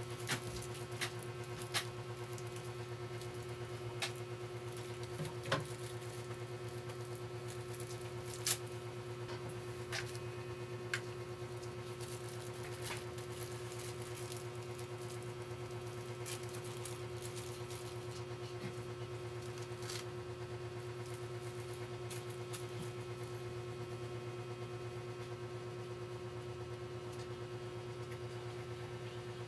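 Scattered light clicks and scratches of small screws and laptop parts being handled as the hard drive is screwed in, over a steady low hum. The clicks come often in the first half, then thin out.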